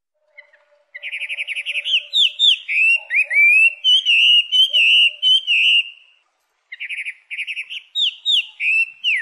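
Taiwan hwamei singing: a loud song that opens with rapid trilled notes and runs on into clear whistles slurring up and down. The phrase comes twice with a short pause between, and the second is cut off abruptly.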